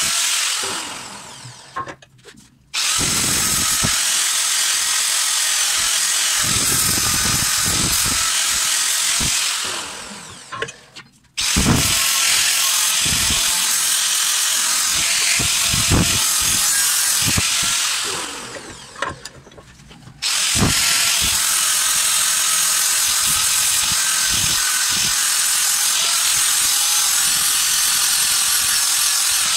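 Angle grinder grinding down the rough steel rail of a bench vice stand to clean it up: a steady high whine with uneven rasping where the disc bites the metal. Three times the sound dies away over a second or two and then comes back abruptly at full level.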